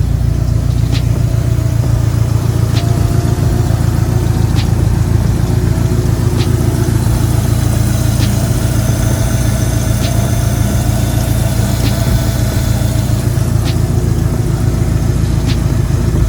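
Dodge SRT-4's turbocharged four-cylinder engine running steadily, with a short click about every two seconds.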